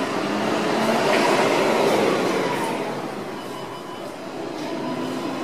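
Izuhakone Railway 7000 series electric train running into a station, with a steady running noise from its wheels on the rails. It is loudest about one to two seconds in, then eases off somewhat.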